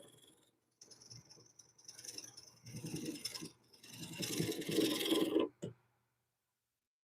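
Carbide turning tool scraping across a wooden bowl blank spinning on a lathe, in four passes that grow longer and louder, over a faint motor hum. All sound cuts off abruptly about two-thirds of the way through.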